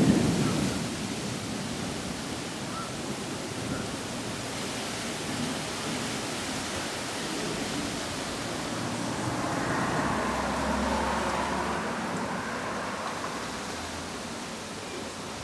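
Heavy rain falling steadily during a thunderstorm. A thunderclap dies away at the start, and a low rumble of thunder swells and fades about ten seconds in.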